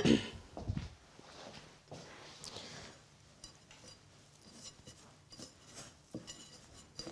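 Faint, scattered clinks and light knocks of utensils and a glass mixing bowl being handled at a kitchen counter.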